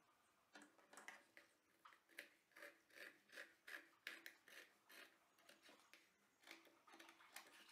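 Scissors cutting through doubled-over denim in short strokes, a faint steady run of snips about two or three a second.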